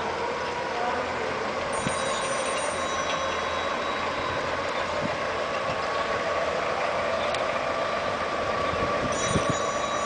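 Nilkamal 1-ton electric forklift travelling: its electric drive motor gives a steady whine that rises slightly in pitch, and a high warning tone sounds twice, briefly about two seconds in and again near the end.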